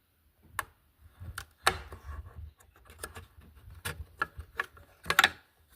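Irregular plastic clicks and knocks as bulb sockets are twisted out of the back of a car taillight assembly, with a louder cluster of clicks near the end.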